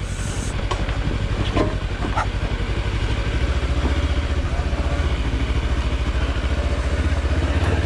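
Kawasaki Versys-X 300's parallel-twin engine running at low speed as the bike rides over a rocky dirt trail, with a few light knocks in the first couple of seconds. The engine note grows deeper and a little louder about three and a half seconds in.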